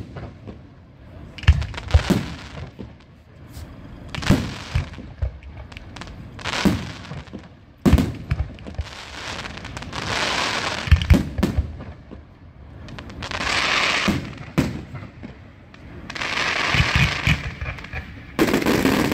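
Fireworks going off: sharp bangs mixed with crackling, fizzing bursts that come every two to three seconds.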